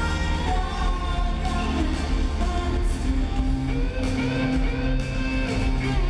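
Live rock band playing over a large venue's PA: electric guitar and a steady bass line, with a sung melody line gliding over them.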